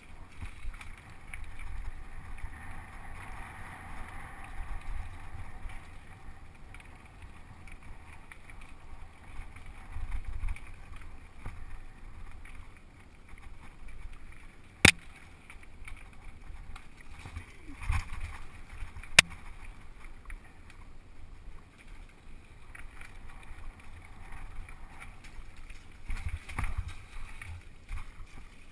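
Mountain bike riding down a rough dirt and rock trail: a muffled, uneven rumble of tyres and bike over the bumps, with two sharp knocks a few seconds apart midway.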